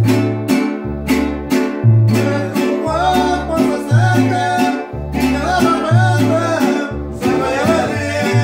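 Small mariachi-style string ensemble playing live: a guitarrón plucks deep alternating bass notes under the rhythmic strumming of a vihuela and guitar, while a violin carries the melody, coming through most strongly about three seconds in.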